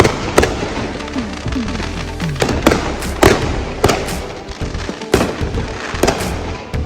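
Fireworks going off: a string of about ten sharp bangs and cracks at uneven intervals, some half a second apart, some a second or more.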